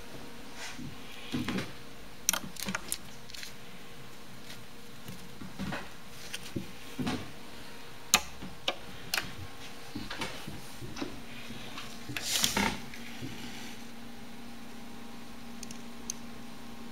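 Gerbils scrabbling in shredded-paper and cardboard bedding: scattered sharp clicks and short rustles, the longest rustle about twelve seconds in. A faint steady hum joins about eleven seconds in.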